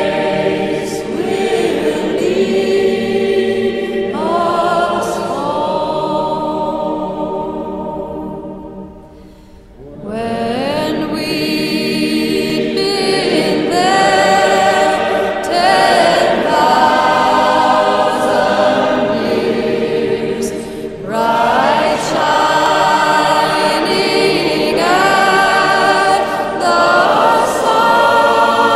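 Background music of a choir singing sustained chords. It fades out about eight seconds in and swells back at about ten seconds.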